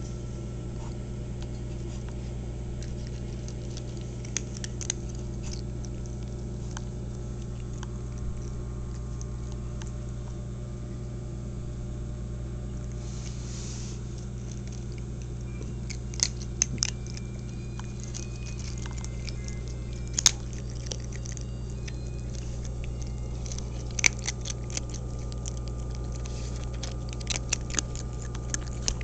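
Cat eating dry kibble: scattered sharp crunches and clicks, sparse at first and more frequent in the second half, over a steady low electrical hum.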